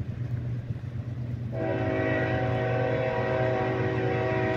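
Approaching diesel freight locomotive with its engine rumbling low. About a second and a half in it starts sounding its air horn, a steady chord of several notes held to the end.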